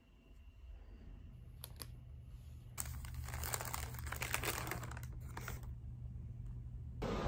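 Paper bakery wrapper crinkling and rustling as a bagel is pulled out of it, a dense crackle that starts about three seconds in and stops near six seconds.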